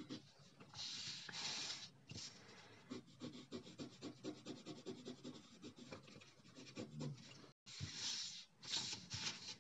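Coloured pencil shading on paper: faint, scratchy strokes of the pencil lead across the sheet, in short runs of quick back-and-forth strokes with pauses between them.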